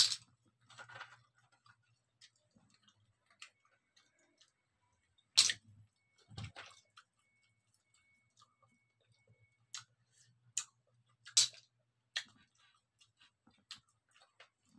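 Irregular sharp clicks and taps of chopsticks and scallop shells knocking together as the scallops are picked apart, with the loudest ones near the start and around the middle.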